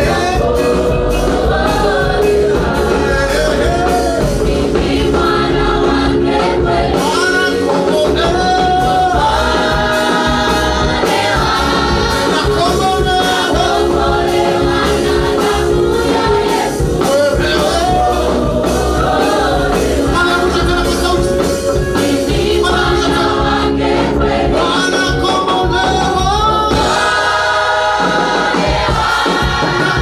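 Church congregation singing a Swahili hymn together, many voices in unison over instrumental backing with a heavy, steady bass.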